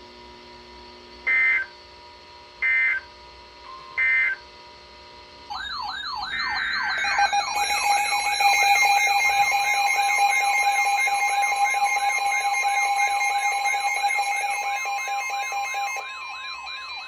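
Emergency Alert System tones: three short data-burst screeches about a second and a half apart. Then, from about five seconds in, a loud alert signal starts: a fast, siren-like warbling tone over steady attention tones. It cuts down shortly before the end, leaving only a single steady tone.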